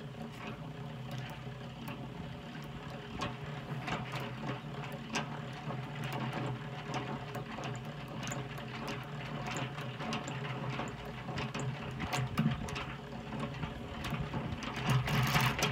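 Hand-cranked stainless-steel honey extractor spinning uncapped comb frames to fling out the honey: a steady whir from the crank gears and spinning basket in the metal drum, with many small ticks.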